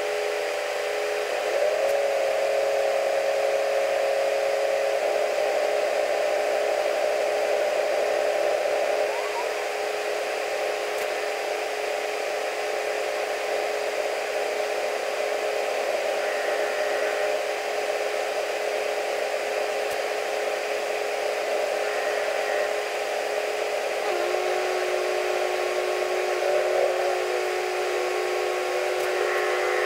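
Diesel-electric freight locomotives pulling slowly away, a steady mechanical whine with several tones that shift and glide in pitch now and then, muffled as heard from inside a vehicle.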